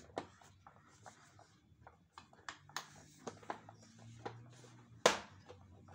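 Hands handling and knocking about the plastic housing of a Samsung canister vacuum cleaner: scattered clicks, scrapes and taps, with one sharp knock about five seconds in.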